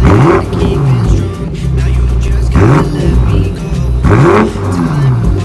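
BMW M8's twin-turbo V8 revved three times through its exhaust while standing: each rev climbs sharply and falls back. The revs come at the start, about two and a half seconds in and about four seconds in.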